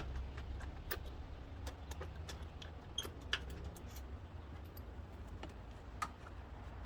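Scattered light metallic clicks and taps of a socket wrench and hand tools working on the throttle body's bolts, irregular rather than a steady ratchet rhythm, over a low steady rumble.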